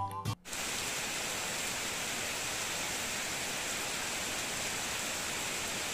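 Steady rain falling on puddled ground, grass and wet floor tiles. It begins abruptly about half a second in.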